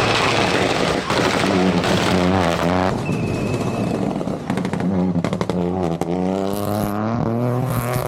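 Peugeot 208 Rally4's turbocharged three-cylinder engine at full rally pace, its pitch climbing and dropping back several times. A run of sharp cracks comes about halfway through.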